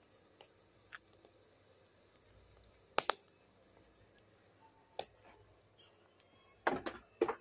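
Wood fire crackling in a steel fire pit: a few short sharp pops, a pair about three seconds in, one about five seconds in, and a louder cluster near the end, over a steady high insect hiss.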